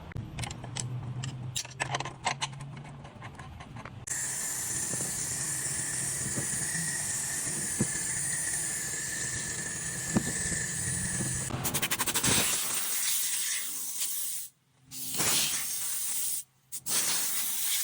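A steady hiss lasting about seven seconds, with a thin high tone in it. Light clicks and a low hum come before it, and shorter stretches of noisier hiss follow, broken off abruptly twice.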